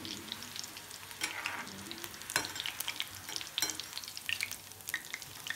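Onion pakodas crackling and sizzling in hot deep-frying oil, now fully fried, while a metal slotted spatula and wire-mesh skimmer stir and lift them, with a few sharper metal scrapes and taps against the pan.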